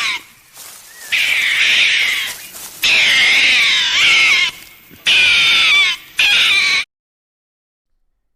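An animal giving a series of loud, wavering cries, the pitch sliding up and down within each call; the last two calls are shorter.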